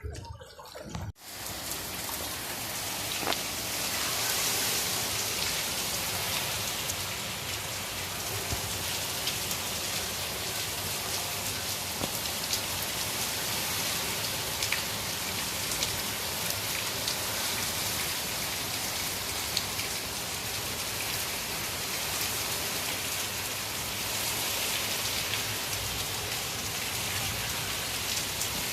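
Heavy rain falling steadily, a dense even hiss with scattered drop taps; it starts abruptly about a second in.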